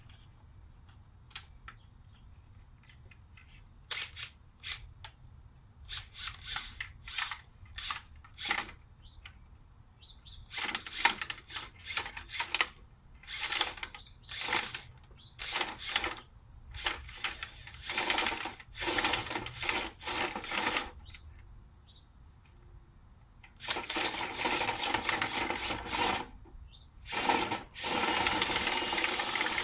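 Power drill run in many short bursts, then held on for longer stretches and running steadily near the end.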